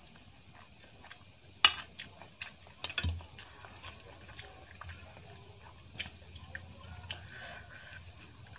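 A glass serving bowl set down, giving a sharp clink and then a clink with a dull thud, followed by fingers mixing curry into rice on a steel plate, with light scattered clicks and taps.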